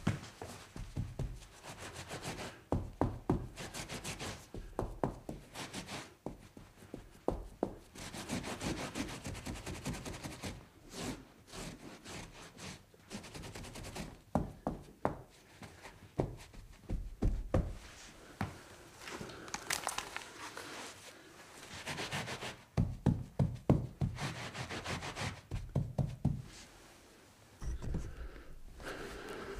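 A spill being cleaned up: irregular rubbing and wiping with many scattered knocks, taps and scrapes.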